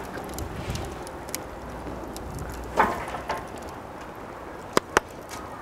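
Low wind rumble on the microphone, a short vocal sound about three seconds in, and two sharp clicks in quick succession near the end.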